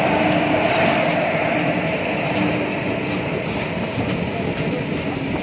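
Steady running noise of a passenger express train heard from on board: wheels rolling on the rails and the coaches rattling as it moves at speed, with a faint held whine.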